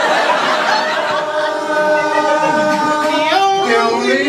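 A small group of voices singing a cappella in close harmony: long held notes that move to a new chord a little over three seconds in.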